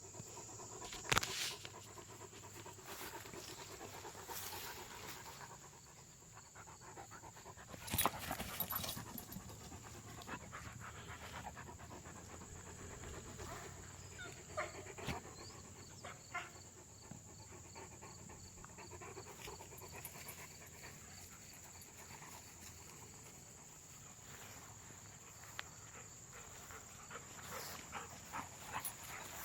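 A dog panting, with a few sharp knocks or rustles, the loudest about a second in and about eight seconds in. A faint steady high-pitched tone runs underneath.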